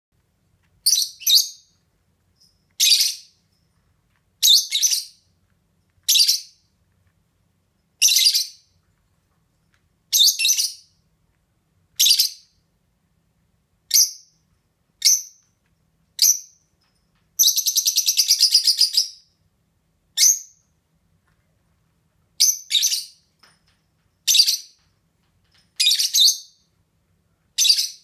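Lovebirds calling: short, shrill, high-pitched chirps repeated every second or two, with one longer, rapid chattering call about halfway through.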